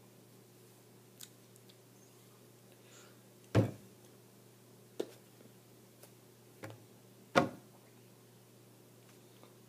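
A handful of dull knocks and bumps at uneven intervals, two of them much louder than the rest, about a third of the way in and again about three quarters of the way in, over a steady low electrical hum.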